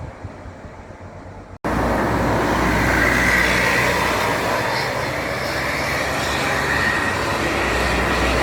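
Bus engine and road noise. A quieter low rumble cuts suddenly about one and a half seconds in to a loud, steady drone of engine hum and rushing noise.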